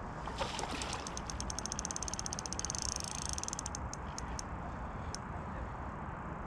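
Fishing reel clicking in a fast, even run of ticks for about three seconds while a hooked carp is played on a bent feeder rod, then a few single ticks.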